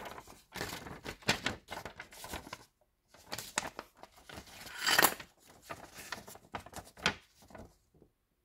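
Paper instruction leaflet rustling and crinkling as it is unfolded and handled, in irregular bursts with a short pause partway and the loudest rustle about five seconds in.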